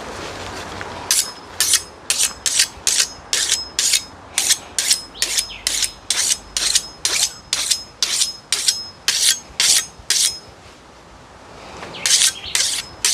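A file rasping on a chainsaw chain in quick even strokes, about two a second, each with a thin high ring of steel. The strokes stop about ten seconds in and start again near the end.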